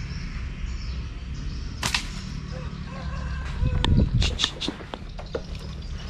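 Slingshot fired: a single sharp snap of the released rubber bands about two seconds in. A louder cluster of knocks and rustles follows around four seconds in.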